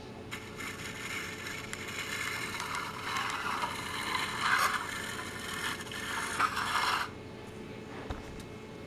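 Plastic toy boat dragged across a tiled floor, scraping unevenly from under a second in and stopping abruptly about seven seconds in.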